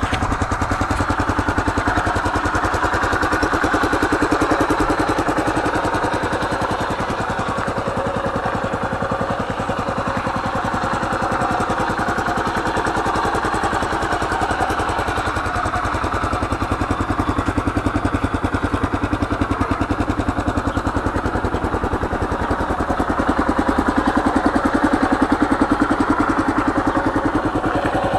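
Kawasaki KLR 650's single-cylinder four-stroke engine idling steadily, with a rapid, even pulse.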